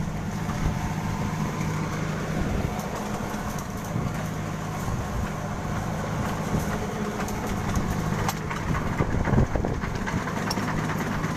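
An engine running steadily at a constant low hum, with rushing noise over it.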